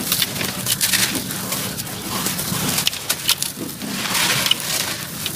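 Sand-cement chunks squeezed and crumbled by hand over a basin of water: irregular crisp crunching and crackling as the lumps break apart, with crumbs and powder falling into the water.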